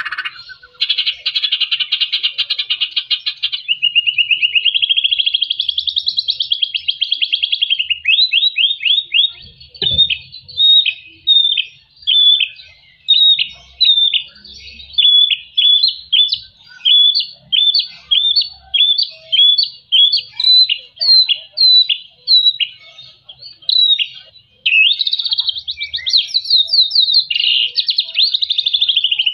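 White-rumped shama singing. It opens with a buzzy rattle and a wavering warble, then gives a long run of short, sharp downward-slurred notes about two a second, and ends with a fast twittering phrase.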